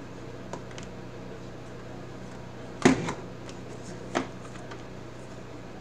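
Two sharp knocks about a second and a half apart, the first followed at once by a lighter tap, over a steady low hum.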